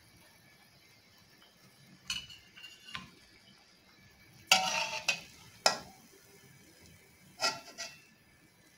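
A metal slotted spatula scrapes and clinks against a wok and a plate in several short bursts while fritters are lifted out of the oil. The loudest clatter comes about four and a half seconds in.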